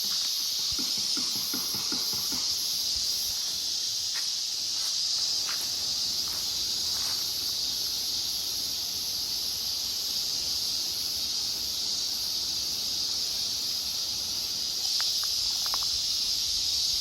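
Cicadas droning steadily in a continuous high hiss, with a few faint clicks and soft knocks over it.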